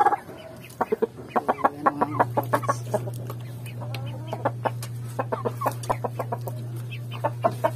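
Chickens clucking in quick runs of short clucks, over a steady low hum that starts about two seconds in.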